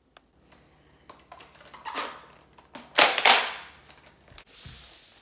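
A scatter of light clicks and knocks, with a louder pair of sharp hits about three seconds in.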